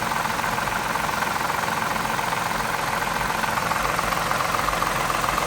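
2003 Mazda 6's 3.0-litre V6 idling steadily with a knocking noise from the engine, which the owner suspects is a bad lifter or timing chain.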